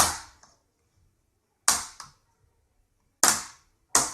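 Plastic screen bezel of an HP Pavilion dv6 laptop being pried off by hand, its clips snapping loose: four sharp snaps, each a second or more apart.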